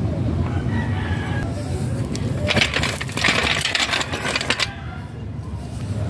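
A rooster crowing once, about two and a half seconds in, for about two seconds.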